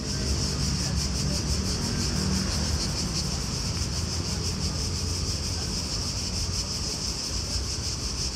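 Steady, high-pitched chorus of cicadas with a fast shimmering pulse, over a low, uneven rumble.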